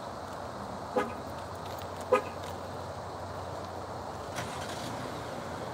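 Chrysler Pacifica minivan's horn giving two short chirps about a second apart, the second louder: the confirmation chirps of a key-fob command.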